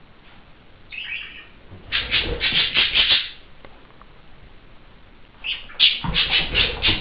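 A budgerigar gives harsh, rapid squawks at a small dog: a short call about a second in, then a quick run of squawks, and another run starting near the end.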